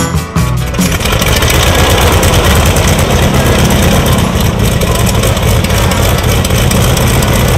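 Music cuts off about a second in, giving way to a Boeing Stearman biplane's radial engine running steadily just after start-up.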